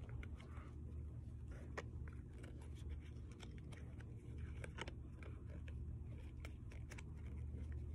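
A stack of trading cards being flipped through by hand, the cards sliding and flicking against one another in faint, scattered clicks over a steady low hum.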